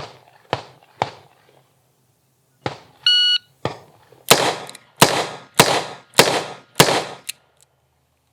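Electronic shot-timer start beep, then five .357 Magnum shots from a Smith & Wesson Model 66 revolver, about 0.6 s apart. The sixth round only clicked, a misfire taken for a light primer strike or a primer seated too deep. A few quieter sharp reports come before the beep.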